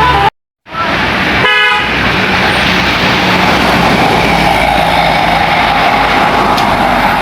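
A brief dropout, then a short bus horn toot about a second and a half in, over the loud, steady engine and road noise of a passing bus.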